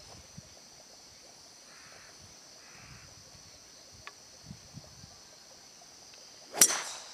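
Golf driver striking a teed ball: one sharp, loud crack about six and a half seconds in. Under it, a steady high drone of insects, and two faint crow caws about two and three seconds in.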